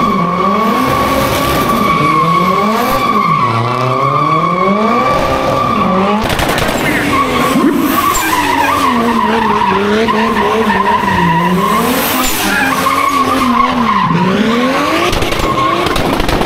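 A car drifting: tyres squealing in a steady high tone while the engine revs rise and fall every couple of seconds. The squeal breaks off briefly about six seconds in, then carries on wavering.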